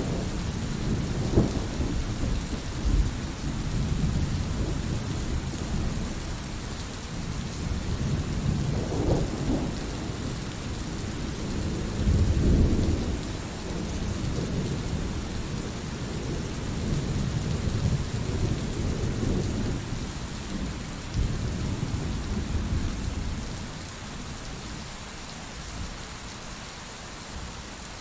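Thunderstorm: steady rain hiss under rolling rumbles of thunder that swell and fade several times, the heaviest about 12 seconds in, easing off near the end.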